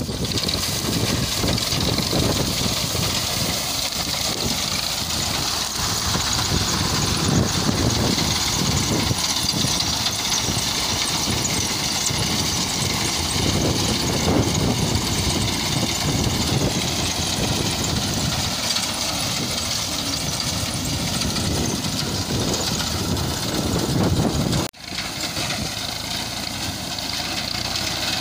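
Tractor diesel engine running steadily under load while its front-mounted reaper cuts standing wheat, engine and cutter noise mixed together. The sound breaks off for an instant about three and a half seconds before the end, then carries on.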